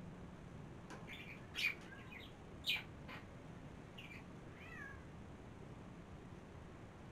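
A cat meowing: a few short, high meows in the first three seconds, then a falling one about five seconds in.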